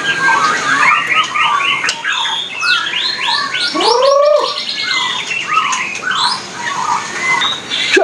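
White-rumped shama (murai batu) singing a fast, varied song of quick runs of repeated notes and trills, with a lower swooping note about four seconds in.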